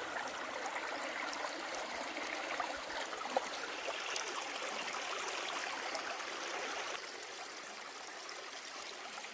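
A stream running, a steady rush of flowing water that eases slightly near the end.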